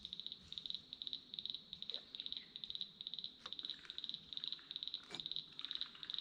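Chorus of small calling animals: high-pitched, rapid pulsed chirps in short trains, repeating a few times a second without a break.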